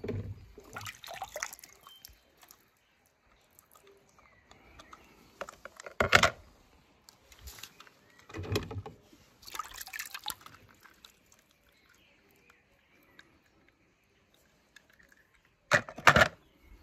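Water sloshing and splashing in a plastic tub as a hand pushes toy cars through it. It comes in irregular bursts, with the loudest splashes about six seconds in and near the end.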